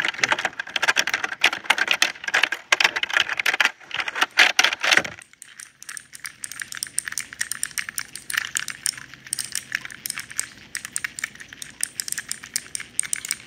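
Rapid, dense clacking of keys being typed for about five seconds, stopping suddenly. After that come lighter, scattered clicks and rattles of small hard plastic pieces handled in the hands.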